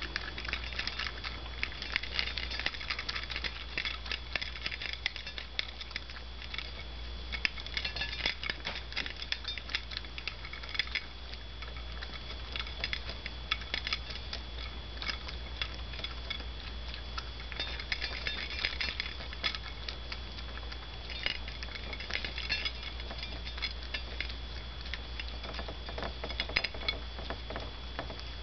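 Toy poodle puppy eating from a stainless steel bowl: a continuous, irregular stream of quick clicks and crunches as its food rattles against the metal and is chewed.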